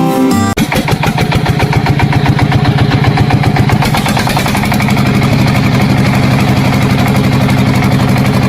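An engine running steadily at idle with a fast, even chugging. It starts abruptly about half a second in.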